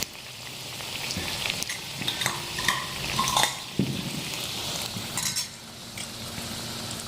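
Potato kachori deep-frying in hot oil, a steady sizzle, with a few short clicks and knocks of handling in the middle seconds.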